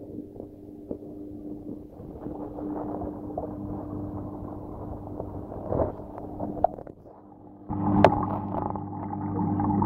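Muffled sound inside a planted aquarium: a steady low mains hum from the tank's water pump under the rustle and knocks of the camera moving among the plants. About eight seconds in, the hum gets louder with a sharp knock.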